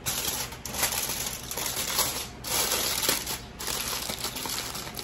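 Aluminium foil crinkling and rustling as hands fold and crimp it shut over a tray, in uneven crackly bursts.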